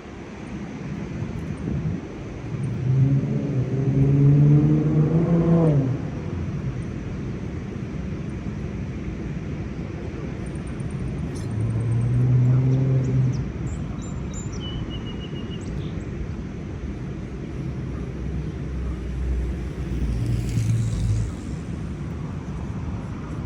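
Engines of passing road vehicles over a steady low rumble, three times; the first rises in pitch over a few seconds. A few faint high chirps sound in the middle.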